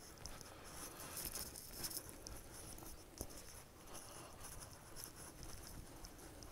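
Faint footsteps and light rustling on a dry grass trail: scattered small scratchy ticks, with one sharper click about three seconds in.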